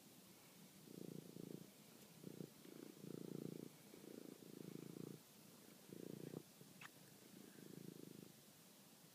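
Domestic cat purring faintly in low, uneven spells, each about half a second to a second long with short pauses between them. A brief high squeak sounds once about two-thirds of the way through.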